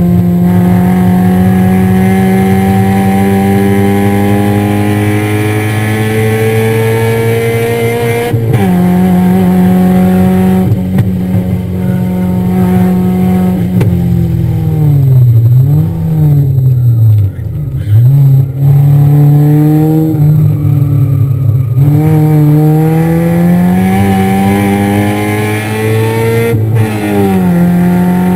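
Car engine heard from inside the cabin on a track lap. It accelerates through the gears with an upshift about eight seconds in, then drops revs under braking with quick rev blips on the downshifts. It accelerates again, with another upshift near the end.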